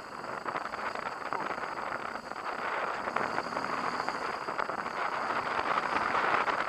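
BMW HP2 Enduro's boxer-twin engine running as the motorcycle rides along a dirt track, mixed with the rush of wind and tyres on the rough surface. The sound grows louder toward the end.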